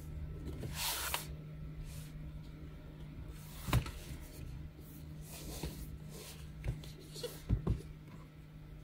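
Cardboard product box being handled and turned over on a work mat: sliding rustles and a few light knocks, the loudest about four seconds in and a quick pair near the end, over a faint steady hum.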